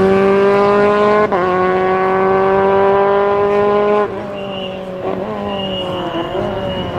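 Rally car engine at full throttle accelerating away, pitch climbing, with a quick upshift about a second in. About four seconds in the driver lifts off and the engine drops to a lower, wavering note as the car slows for the junction, with a thin high squeal near the end.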